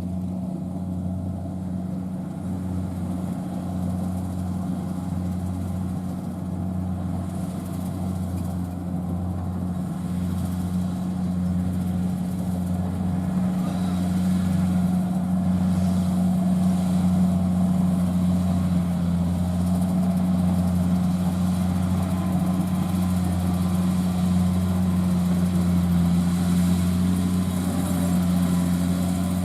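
Combine harvester's diesel engine running steadily at constant speed, growing somewhat louder partway through.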